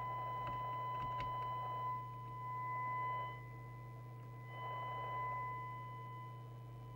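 Steady 1 kHz test tone from the loudspeaker of a Harrier CBX FM CB radio receiving a signal-generator signal, heard with its overtones, a steady low hum and background hiss. The hiss and distortion drop away twice and come back as the FM detector is adjusted during receive alignment of a badly misaligned receiver. There are a couple of faint clicks about a second in.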